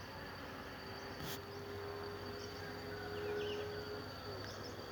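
Faint buzzing of worker bees foraging in jabuticaba blossom, one bee's hum coming up about a second in and fading out near four seconds, over a steady high insect whine.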